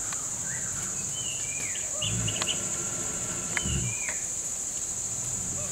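Insects in the forest keep up a steady high-pitched drone, and birds call over it in short falling notes, repeated several times. Two low thumps come about two seconds and three and a half seconds in.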